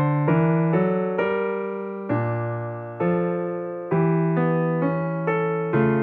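Background piano music: a slow melody of struck notes over low bass notes, each note fading after it is played.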